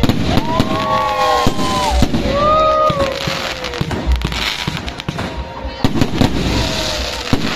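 Aerial fireworks going off in a dense, irregular series of bangs and crackles, with a few wavering held tones over them in the first few seconds.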